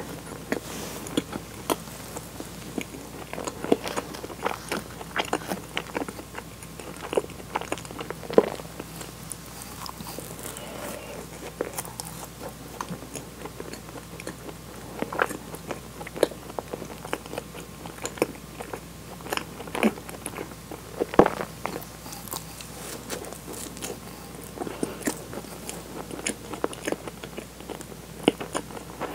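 Close-miked chewing of a soft, sugar-dusted cream-filled donut, with many short, irregular wet mouth clicks.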